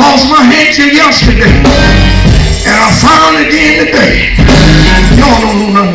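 Loud live gospel music with electric guitar and a man's voice singing over it through a microphone.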